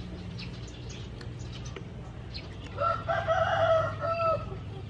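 A rooster crowing once, starting about three seconds in and lasting about a second and a half.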